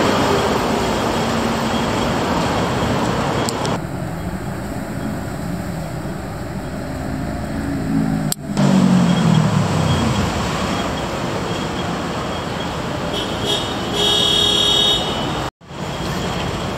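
Steady road traffic noise, with a vehicle passing about eight seconds in, its engine note falling as it goes by. A brief high-pitched squeal sounds near the end.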